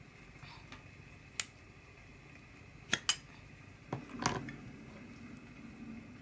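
Sharp metallic clicks and clinks, a single one, then a quick pair, then a short cluster, typical of the hinged lid of a Zorro flip-top (Zippo-style) lighter being snapped open and shut.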